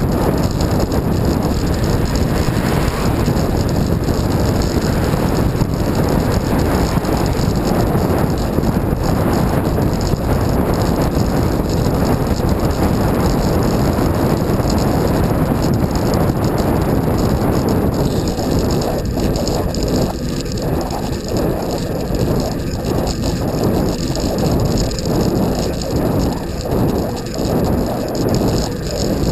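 Wind rushing over the microphone with tyre and road noise from a bicycle being ridden. In the last ten seconds it gets a little quieter and rises and falls about once a second.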